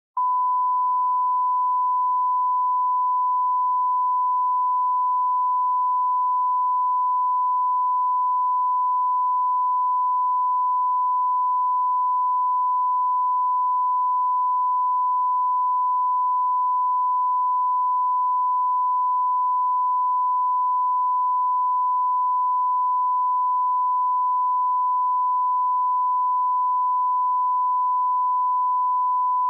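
Continuous broadcast line-up test tone: one steady pure beep at a single pitch, switching on suddenly and holding unchanged.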